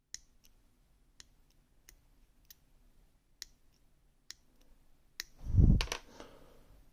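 Metal parts of a disassembled ASSA Twin 6000 lock cylinder clicking as they are handled, with about ten sharp, spaced-out clicks. About five and a half seconds in comes a louder dull thud with a couple of clicks on it.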